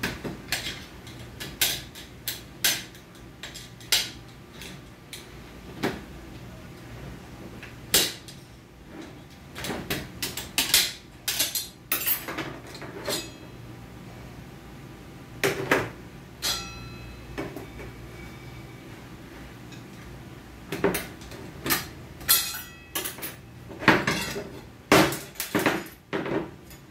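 Metal clutch plates and other steel parts of an automatic transmission clinking and clattering as they are handled and set down: scattered sharp knocks, some ringing briefly, coming thicker near the end.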